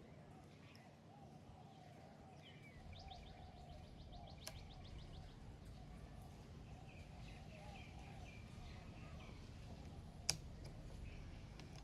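Faint birds chirping, with a quick trill of rapid chirps and later a run of single chirps, over a steady low hum. A sharp click about ten seconds in, with a fainter one earlier, is the loudest sound.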